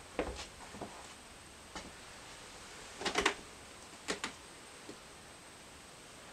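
Scattered light knocks and clicks of movement and handling: a few small ones in the first second, a louder clatter of several about three seconds in, and two more a second later.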